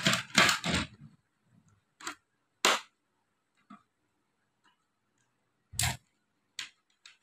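Hands handling parts on a monitor's plastic back casing: a second of rustling and scraping, then a handful of separate short clicks and taps, one a duller knock about six seconds in.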